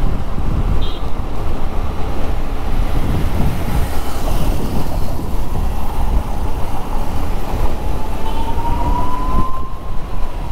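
Wind rushing over the microphone with the Suzuki scooter running at road speed, plus tyre and traffic noise. Over the last few seconds a faint whine rises steadily in pitch as the scooter speeds up.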